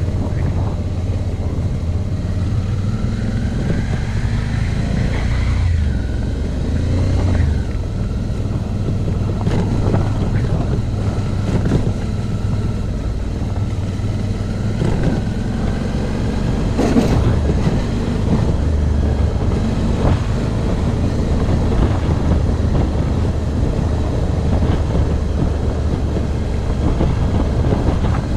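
Suzuki V-Strom motorcycle riding a bumpy dirt road: the engine runs steadily, rising and falling with the throttle, under wind noise, with scattered knocks from the bumps, the sharpest about two-thirds of the way through.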